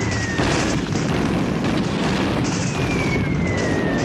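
Battle sounds: a loud, continuous din of explosions and gunfire, crossed twice by a long falling whistle.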